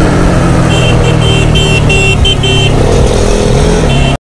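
Bajaj Dominar 400's single-cylinder engine running steadily at cruising speed, with wind and road noise. About a second in, a horn sounds a string of short toots, and a couple more come near the end, just before the sound cuts off.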